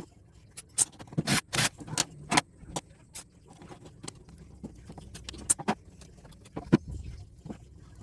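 Small metal scrap pieces from electrical connectors clinking and clattering as they are handled and dropped into sorting containers: an irregular run of sharp clicks and clinks, in quick bursts and one louder clink near the end.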